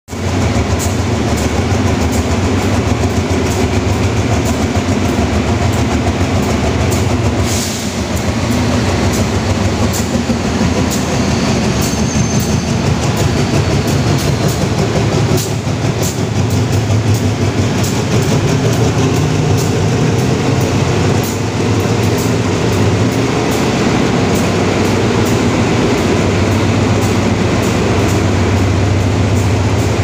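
GE diesel-electric locomotive of the GEA class running with a loud, steady low engine drone, with scattered sharp clicks over it.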